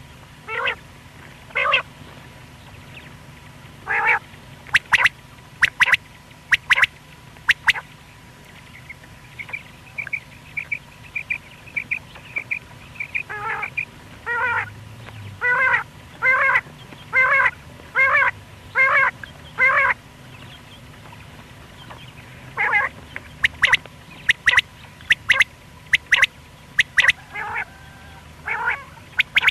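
Common quail calling: repeated short rasping notes, in a steady run of about one every second through the middle, mixed with sharp, clicky high calls and a faint rapid trill of quieter notes. A faint steady hum lies underneath.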